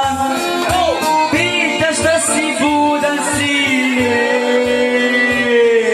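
A man sings into a handheld microphone over amplified backing music with a steady beat, holding long notes that bend in pitch.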